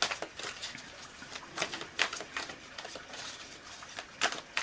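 Tarot cards being handled on a table: a handful of short, soft taps and slaps with light rustling between them.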